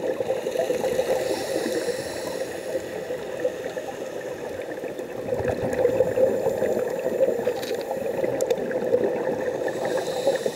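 Underwater gurgling of a scuba diver's exhaled bubbles from the regulator, heard through the camera's underwater housing. It comes in louder stretches at the start and again from about six seconds in, with a few faint clicks.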